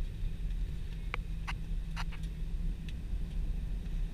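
Steady low cabin rumble of an Airbus A320 taxiing on a wet taxiway. About five or six short clicks come a second or two in.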